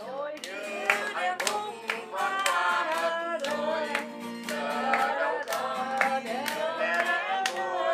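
A group singing together to an acoustic guitar, with hands clapping on the beat about twice a second.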